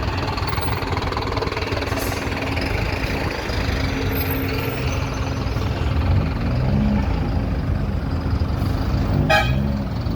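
Street traffic in a jam: vehicle engines running, with a car horn tooting briefly near the end.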